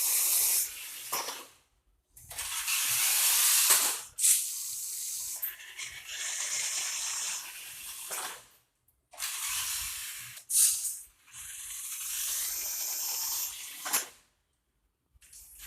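Radio-controlled truck driven in stop-start bursts: a hissing rush from its electric motor and tyres, with short pauses between runs and a thin high whine during some of them.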